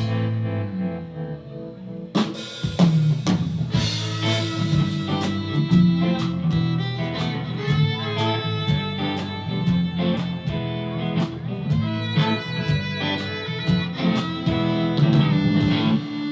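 A rock band playing an instrumental intro: electric guitar with bass over a drum kit that comes in about two seconds in with kick, snare and rimshot hits.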